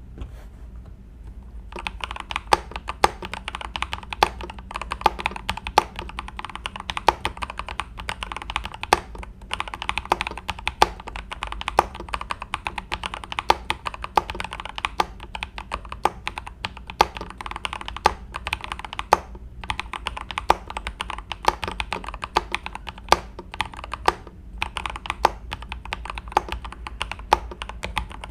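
Typing on a Next Time 75 mechanical keyboard with Kang White V3 switches: a fast, continuous stream of key clacks with frequent louder strokes. It starts about two seconds in and pauses briefly a few times.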